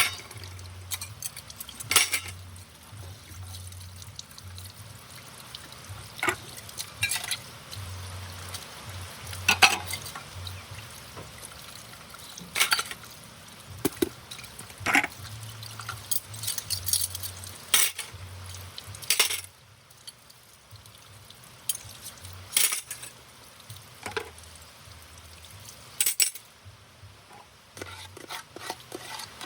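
Dishes being washed by hand: scattered sharp clinks and knocks of plates and cutlery against each other, with wet scrubbing and water sounds between them.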